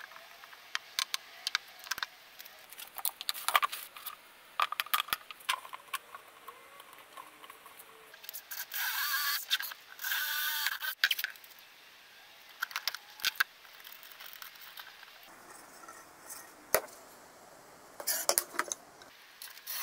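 Clicks and knocks of tools and plywood parts being handled, with a Bosch cordless drill running in two short bursts of about a second each a little before halfway through.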